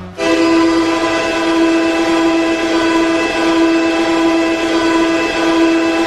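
Lone Star Brahmas' hockey goal horn sounding one long blast at a single steady pitch, cutting in abruptly.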